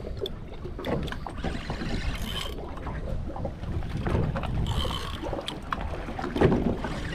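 Wind buffeting the microphone over the wash of open water around a small boat, with scattered small knocks.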